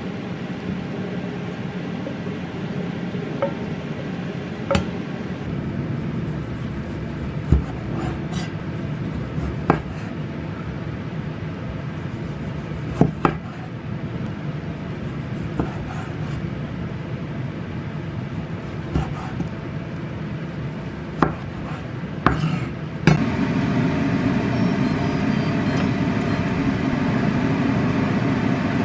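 Kitchen work: a knife cutting a tomato on a wooden cutting board and a frying pan handled over a plate, heard as a dozen or so sharp knocks and clicks scattered over a steady background hiss. About 23 seconds in, a louder steady rushing noise starts.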